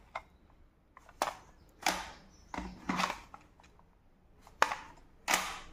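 About seven sharp clicks and knocks at uneven intervals, some louder than others, with quiet between them.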